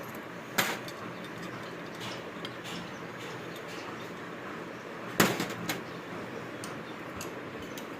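Metal parts and tools being handled on a workbench: two sharp clinking knocks, one just after the start and one about five seconds in, with a few lighter ticks over a steady background hiss.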